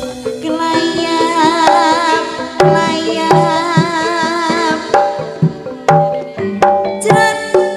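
Live campursari music: a female singer holds long wavering notes into a microphone over hand-drum strokes and sustained pitched accompaniment. The sung notes fill the first half, and the drums and band carry on after.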